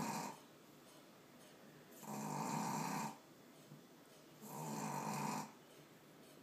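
Three-month-old Boston Terrier puppy snoring loudly in its sleep: a snore is just ending at the start, then two more snores follow about two and a half seconds apart, each lasting about a second, with quiet between them.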